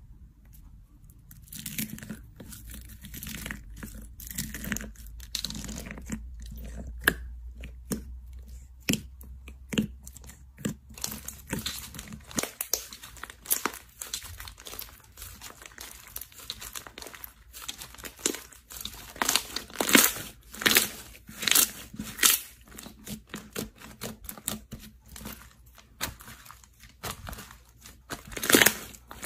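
White slime studded with small clay pieces and sprinkles being stretched, folded and pressed by hand, giving a run of sharp crackles and pops. The crackles come thicker and louder in the second half.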